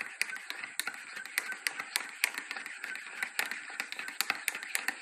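A teaspoon clinking against the inside of a ceramic mug as a hot drink is stirred: a steady run of quick clinks, several a second.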